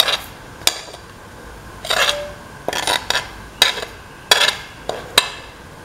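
Metal plate's edge scraping against the rim of a mixer-grinder jar as flour and baking soda are tipped in: about eight short scrapes, unevenly spaced.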